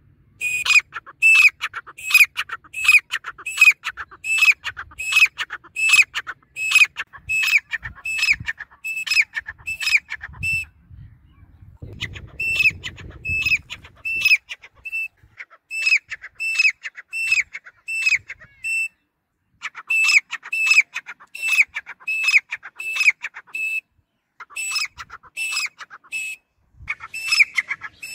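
Grey francolin calling: loud, shrill notes repeated about two a second in long series, broken now and then by pauses of a second or so.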